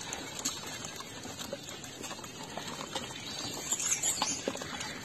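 Buransh (rhododendron) flower juice trickling and splashing through a cotton straining cloth into a tub as the cloth is worked in the liquid, with a brief high-pitched sound about four seconds in.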